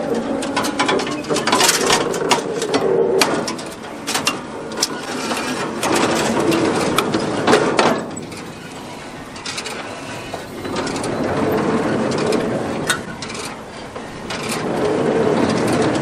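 Small square baler being turned over slowly by hand at the flywheel to test its cycle. Its chain, gears and linkages clank and click in swells every few seconds.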